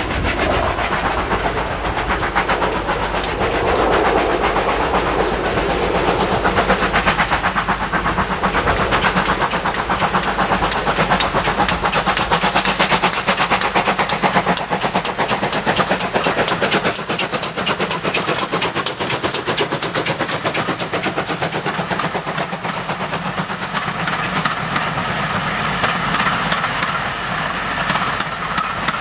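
Steam locomotive hauling a train of passenger coaches past at speed, its rapid beating sound growing as it nears and loudest as it passes. It is followed by the coaches' wheels rolling and clattering along the track.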